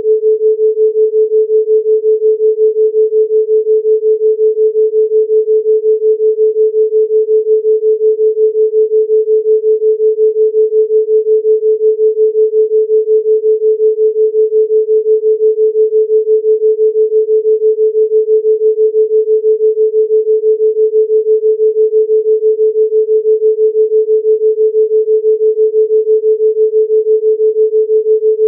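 A 432 Hz pure sine tone held steady, its loudness pulsing in a rapid, even rhythm: a theta-range binaural beat.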